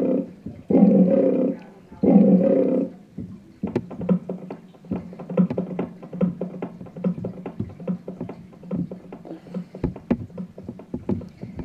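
Electronic keyboard's built-in animal sound-effect samples: a lion-like roar sample struck repeatedly in bursts of about a second, ending about three seconds in, then a quick run of short repeated notes, about three a second.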